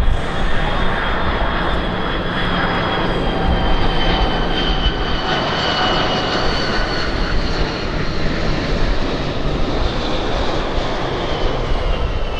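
A KC-10A Extender's three CF6 turbofan engines as it lands: a steady jet roar with a high whine that slowly falls in pitch.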